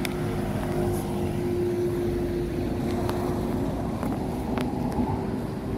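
Street traffic: a steady engine drone with a constant low hum running through it and a few faint clicks.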